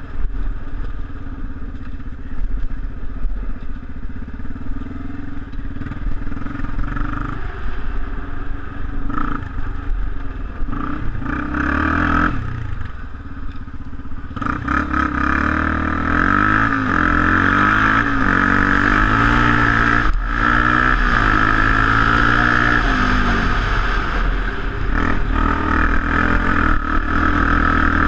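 Off-road motorcycle engine running, heard close up from on board. About halfway through it gets louder and the revs rise and fall several times as the bike accelerates along the dirt trail.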